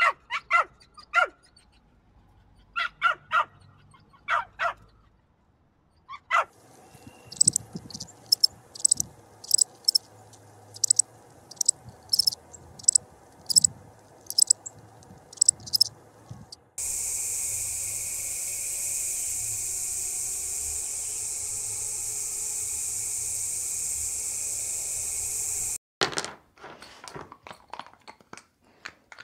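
A puppy's short yips and barks, then a northern cardinal's sharp high chip notes, about two a second. Next comes a steady high-pitched buzz lasting about nine seconds that cuts off suddenly, and then a dog crunching on a chew bone near the end.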